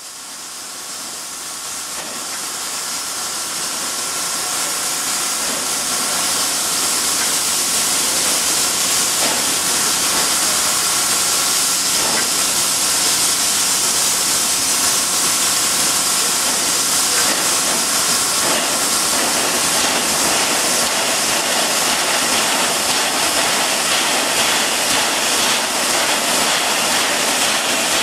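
Pere Marquette 1225, a 2-8-4 Berkshire steam locomotive, venting steam: a loud, steady hiss that builds over the first six or seven seconds and then holds.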